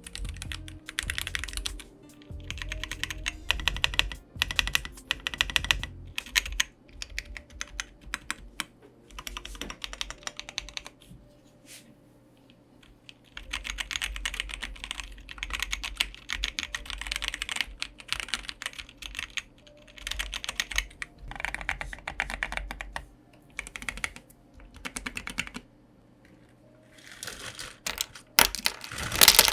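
Typing on the Iris aluminium-case split mechanical keyboard with tactile Invyr Holy Panda switches and ceramic keycaps: fast key clacks in runs of a few seconds, with short pauses between them.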